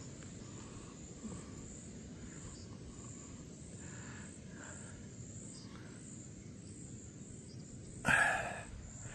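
Quiet outdoor background of insects chirring in a steady, high, pulsing band, with a brief louder noise near the end.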